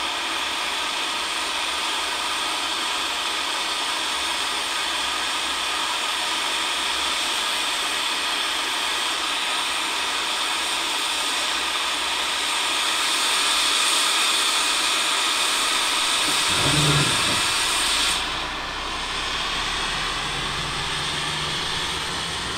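Sentinel steam locomotive hissing steam steadily and loudly. About 17 seconds in there is a brief low sound, and just after it the hiss cuts off, leaving a quieter low hum.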